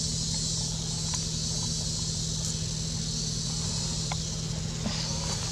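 Steady outdoor forest ambience: a constant high insect drone over a steady low hum and rumble, with a few faint clicks.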